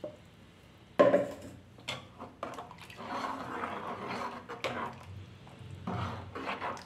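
A steel ladle stirring thick sambar in an aluminium pot, with liquid sloshing and the ladle scraping and clinking against the pot's sides. A sharp clatter comes about a second in.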